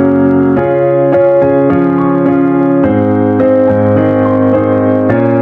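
Background music: electric piano playing sustained chords that change every second or so.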